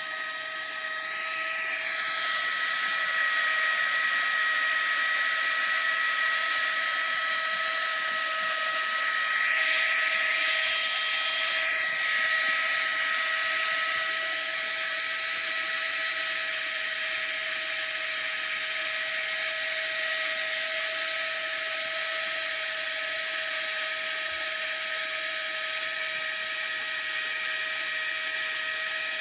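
Flextail Tiny Pump 2 mini electric air pump running steadily while deflating, a high motor-fan whine over rushing air. The pitch wavers briefly twice.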